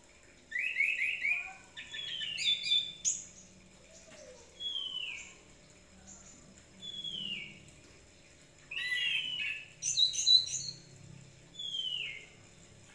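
Caged chestnut-capped thrush singing in full voice: bursts of rapid, varied chirps and whistles about half a second in, at two seconds and again near nine seconds, with single falling whistles between them.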